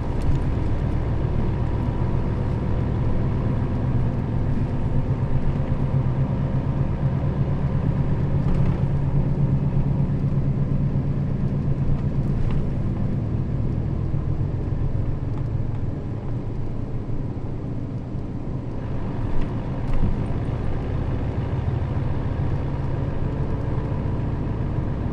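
Nissan Diesel KL-RA552RBN city bus driving, its diesel engine humming steadily under road noise as heard from inside the cabin. Two short thumps come about twenty seconds in.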